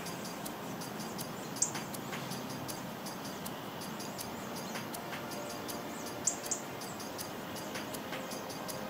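Outdoor ambience: a steady hiss with a few short, high bird chirps, one about a second and a half in and two close together a little past six seconds.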